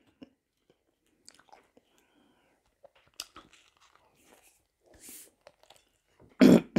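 Close-miked chewing and biting with small wet mouth clicks as a morsel of food is eaten. A short breath comes about five seconds in, and a brief loud voiced sound follows near the end.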